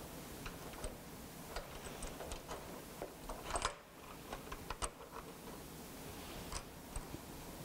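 Light metal clicks and rattles of a T-slot hold-down clamp being slid along an aluminium extruded track and set against a plywood sheet, with a cluster of clicks about three and a half seconds in.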